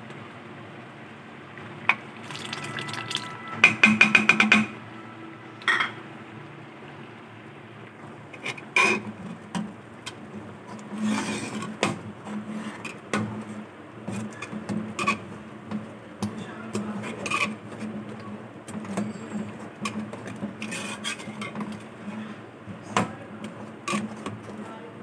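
Metal spoon scraping and knocking against an aluminium pressure-cooker pot while stirring thick lentil dal: irregular clinks throughout, with a quick run of ringing clinks about four seconds in.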